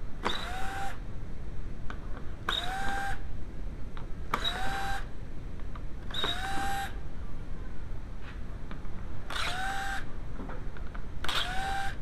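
Power screwdriver with a T25 Torx bit run in six short bursts, each spinning up quickly to a steady whine, backing out the screws of a car's underbody panel. A steady hiss of added noise runs underneath.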